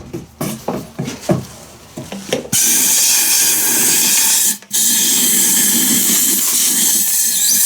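Compressed-air blow gun blasting debris out of a chainsaw's fuel tank: a few clicks and knocks of handling, then a loud steady hiss of air in two long blasts with a brief break between them.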